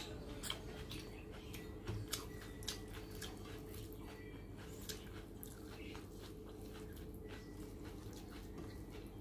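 Eating by hand: chewing, with fingers squishing and mixing rice and curry on a plate, heard as a scatter of soft wet clicks that are thickest in the first few seconds, over a steady low hum.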